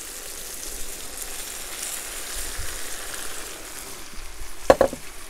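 Carrot strips sizzling as they are tipped into hot oil with browned beef and onions in a kazan over a wood fire: a steady hiss of frying. A brief sharper sound near the end.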